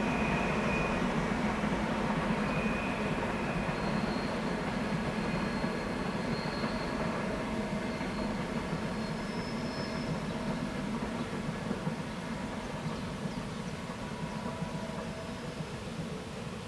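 Train running through a tight curve, its wheels on the rails giving a dense steady noise that slowly fades as it moves away. Faint short high squeals of wheel flanges on the curved rail come and go.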